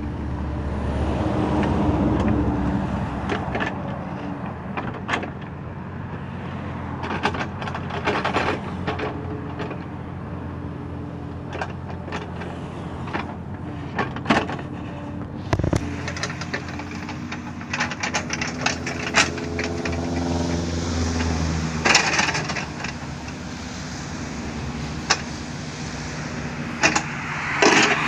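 Kobelco SK35SR mini excavator's diesel engine running under hydraulic load while its bucket digs into grassy soil, with scattered knocks and scrapes from the bucket and arm. The engine note shifts in pitch for a few seconds past the middle as the arm works.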